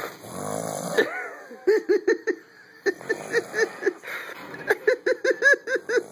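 A person snoring: a harsh, rattling snore that catches sharply about a second in. Then come runs of short, rapid pulses, about four a second, typical of stifled giggling.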